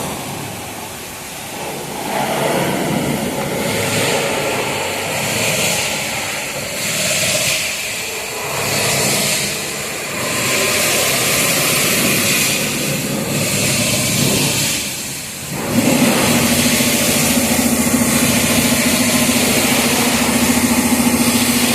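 Swift's 1.3 litre four-cylinder diesel engine being cranked over in several goes, then catching about 16 seconds in and settling into a steady idle. This is the first start after a timing chain replacement, and the engine idles without the timing chain rattle it had before.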